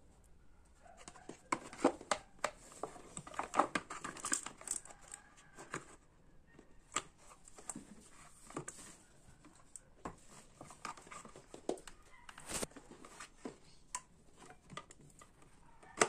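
Plastic drip pan of a small personal refrigerator being handled and fitted back onto the compressor: quiet rustling and clicking of plastic against the metal unit. The clicks are busiest in the first few seconds and turn sparse after that, with one sharper click about two-thirds of the way through.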